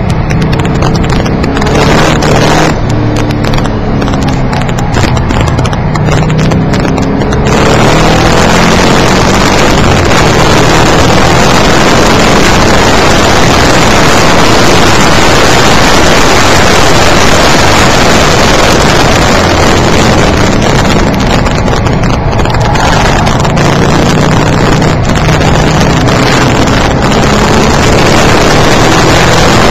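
Street car's engine and road noise heard from inside the cabin during a lap of a racing circuit, picked up by an over-sensitive microphone that makes it sound distorted. The engine note rises and falls through a corner for the first several seconds. Then a loud, steady rushing noise covers it along the straight, and the engine note comes through again later on.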